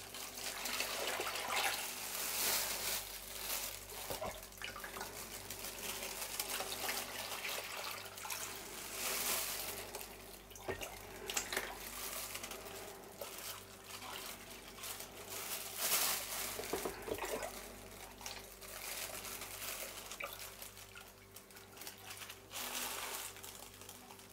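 Water poured from a plastic measuring jug into a plastic tub, splashing and trickling around a submerged plastic bag. It comes in several pours, each swelling louder and then easing off.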